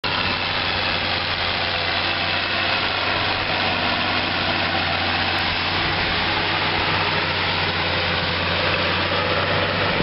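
John Deere 6810 tractor's six-cylinder diesel engine running at a steady pitch while pulling a mounted plough through the soil, a constant low drone with no revving.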